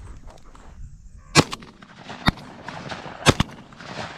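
Three shotgun shots about a second apart, fired at a passing dove that is missed.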